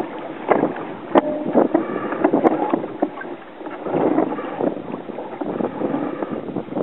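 Water rushing and slapping along the hull of a wooden Sabre sailing dinghy heeled hard over in strong wind, with wind buffeting the microphone. A few sharp knocks come from the boat, the loudest about a second in.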